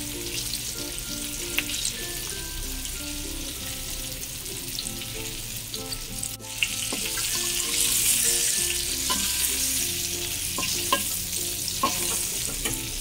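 Flour-battered chicken wings sizzling as they fry in hot oil in a wok, with a metal spatula clicking now and then against the wok as the pieces are turned. The sizzling grows louder about halfway through.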